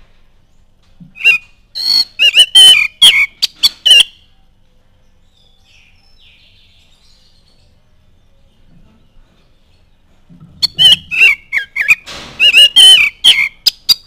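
Oriental magpie-robin singing: two loud bursts of quick, sharp whistled notes, the first starting about a second in and lasting some three seconds, the second starting about ten seconds in and running nearly to the end.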